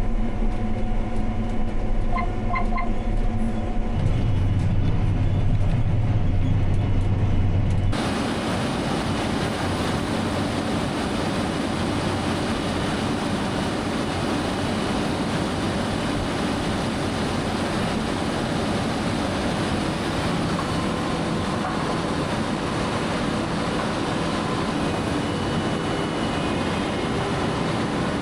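Farm machinery engine running steadily, with a deeper, stronger tone from about four seconds in; about eight seconds in the sound switches abruptly to a steady, noisier engine drone.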